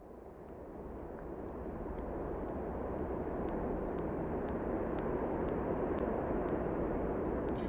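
A steady rushing noise fades in and slowly swells, with faint high ticks about twice a second joining about two seconds in: the opening of a film soundtrack leading into music.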